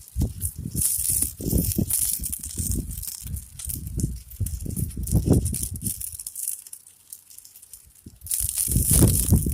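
A large mass of burning match heads crackling and hissing, with an uneven, gusting low rumble that fades for a couple of seconds before rising again near the end.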